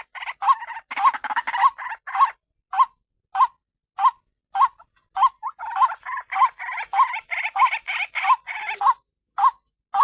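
White-breasted waterhen (ruak-ruak) calling: a long series of short repeated notes, about two a second, with harsher chattering between them in stretches.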